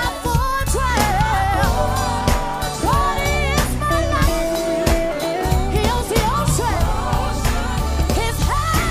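Live gospel praise music: several singers on microphones with sliding, bending vocal lines, over a drum kit and a heavy bass.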